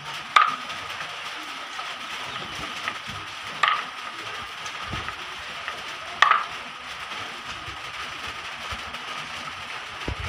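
Large knife chopping freshwater eel into pieces on a wooden board: three sharp chops a few seconds apart, each with a short metallic ring, over a steady background hiss.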